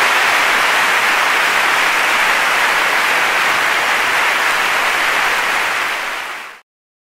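Large audience applauding steadily, a dense even clapping; it fades and cuts off abruptly about six and a half seconds in.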